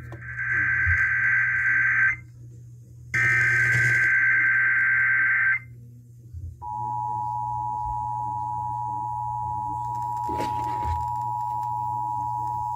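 Emergency Alert System test broadcast: two bursts of the SAME header's buzzing digital data tones, each about two and a half seconds long. About six and a half seconds in, the steady two-tone EAS attention signal starts and holds.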